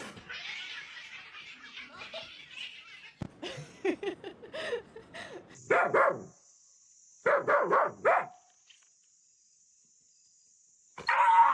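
A dog barking in two quick runs of short barks, after a stretch of low rustling noise. The barking is followed by a few seconds of near silence, then a loud voice cuts in right at the end.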